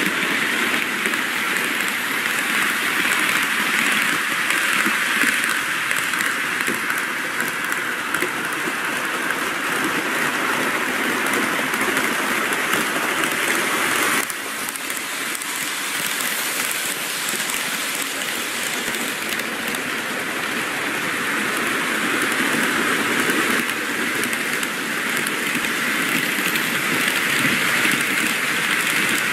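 N-gauge model commuter trains running on the layout track: a steady rushing whir of motors and wheels on the rails. It dips slightly in level about halfway through and builds back up toward the end.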